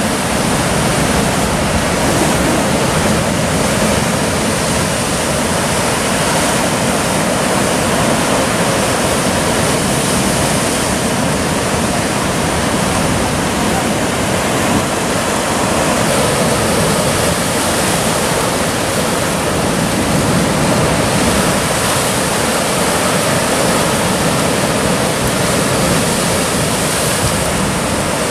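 Sea surf breaking and washing over the boulders at the foot of a rocky shoreline, a loud, steady rush of noise without breaks.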